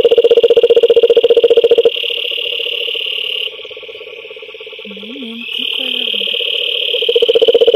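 A toad calling right at the microphone: a loud, rapid pulsed trill that stops about two seconds in and starts again near the end. Other frogs keep up a higher-pitched trill, which drops out for a couple of seconds in the middle.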